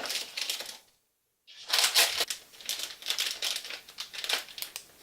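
Crinkling foil and plastic wrappers with small clicks and clatters as toy surprise packs are handled and dropped into a toy shopping cart, in two spells with a short pause about a second in.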